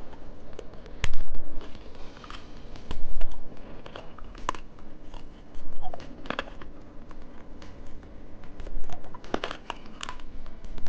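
Candy being bitten and crunched close to the microphone: an irregular run of crisp cracks and crackles, with louder bites about a second in and again near three, four and a half, six and nine and a half seconds.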